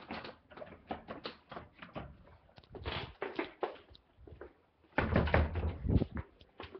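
A series of short clicks and knocks, with a louder, low, rumbling stretch about five seconds in.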